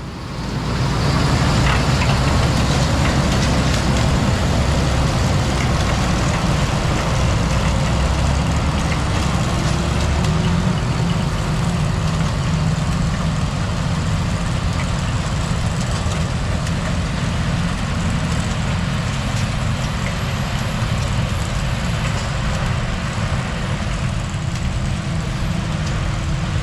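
Sugar beet harvester at work: a Fendt 936 tractor's engine drones under the steady clatter of the Amity beet harvester's digging wheels and conveyors as beets tumble into a truck running alongside. An engine note rises for a few seconds about nine seconds in.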